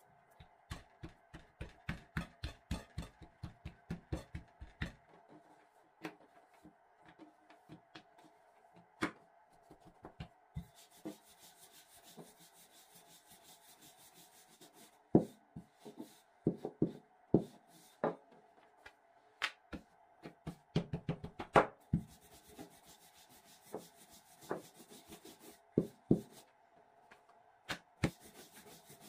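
Rolling pin rolling out rounds of dough on a floured wooden tabletop: rubbing strokes and scattered wooden knocks as the pin rolls and bumps the table. The first few seconds hold a quick run of taps, several a second.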